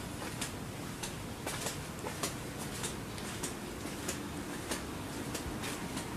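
Footsteps on a concrete alley floor at an even walking pace, a short tap a little under twice a second, over a steady background hum.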